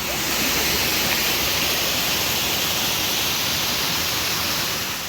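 Loud, steady rush of falling water, a waterfall-like hiss that fades in at the start and fades out near the end.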